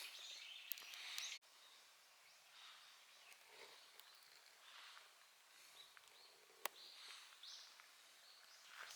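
Near silence: faint outdoor ambience with a few soft, distant bird-like calls and a single sharp click. The level drops suddenly about a second and a half in.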